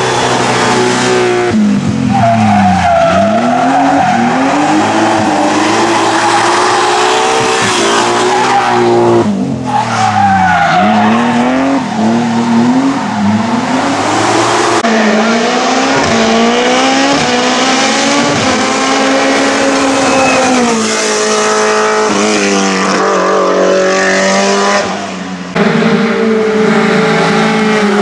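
Hillclimb race car engines revving hard as the cars accelerate up the course. The pitch climbs and drops sharply at each gear change and on lifting for corners.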